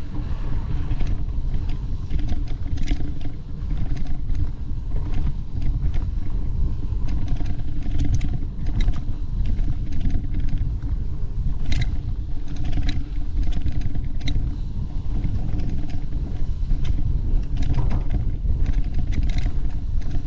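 A vehicle engine running steadily under a heavy low rumble, with frequent knocks and rattles from riding over rough trail.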